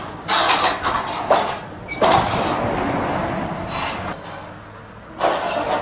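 Hydraulic scrap shear on a wheeled excavator biting through a steel highway guardrail: several separate bursts of metal creaking and tearing over the steady hum of the excavator's engine.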